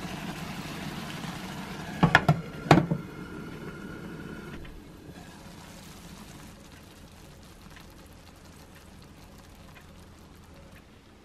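Tomato sauce simmering and bubbling in a ceramic frying pan on a gas stove, with two sharp clanks of cookware about two seconds in. About four and a half seconds in the sound drops to a faint hiss.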